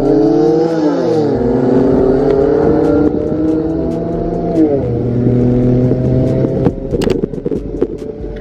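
Car engine accelerating through the gears. The pitch climbs and drops sharply at an upshift about a second in and again near five seconds in, then holds fairly steady. A few sharp cracks come in the last couple of seconds.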